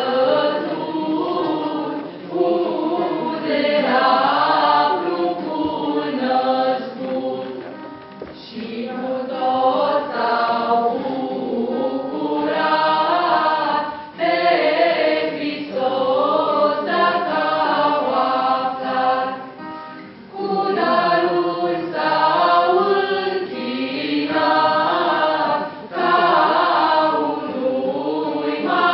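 Folk choir singing a Romanian colindă (Christmas carol) in phrases of about six seconds, with short breaks for breath between them.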